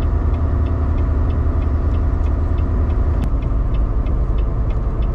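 Steady low rumble of a semi truck's engine and tyres heard from inside the cab while driving, with a faint, regular ticking about four times a second and a single sharp click about three seconds in.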